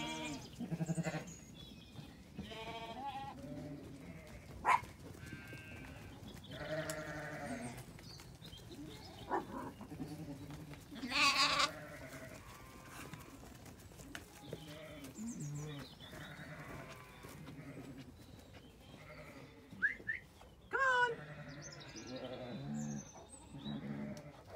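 A flock of Zwartbles ewes and lambs bleating on and off, deep calls mixed with higher ones, with one loud call about eleven seconds in.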